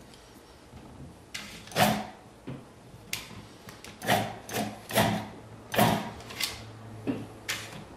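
Panasonic electric pencil sharpener running with a low hum while a colored pencil is ground in it, with a series of sharp knocks and clatters as the pencil is pushed and worked in the sharpener. The hum stops shortly before the end as the sharpener switches itself off once the point is sharp.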